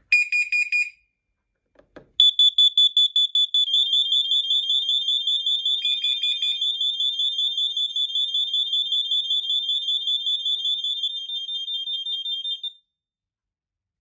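Smart Detect UK interlinked wireless smoke and heat alarms sounding together in a system test triggered from the remote: a short beep, then fast, high-pitched pulsed beeping that thickens as more alarms join in and cuts off suddenly near the end. All the units sounding at once shows they are paired to the system.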